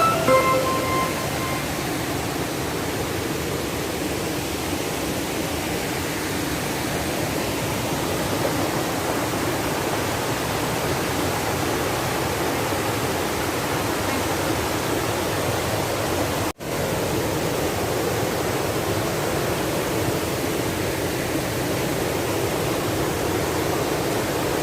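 Steady rush of water from a waterfall stream, even and unbroken except for a momentary dropout about two-thirds of the way through.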